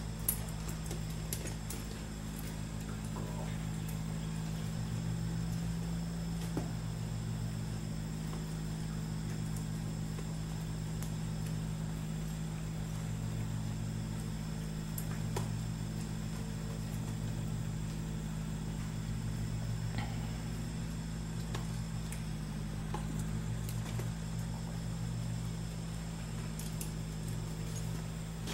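Steady low mechanical hum, with a few faint clicks scattered through it.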